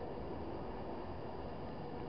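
Class 390 Pendolino electric train running past close by along the platform, a steady rumble of wheels and running gear.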